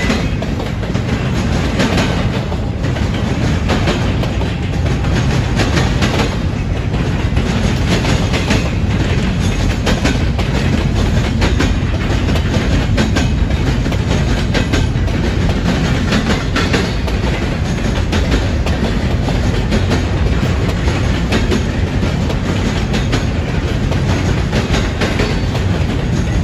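Double-stack intermodal freight train rolling past: a steady rumble of steel wheels on rail from the container well cars, with scattered clicks as the wheels cross rail joints.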